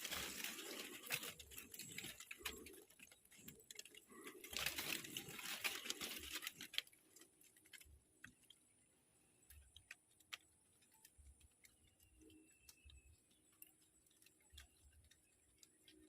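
Soft rustling and knocking for about seven seconds, then near silence broken by scattered faint clicks and a brief faint whistle.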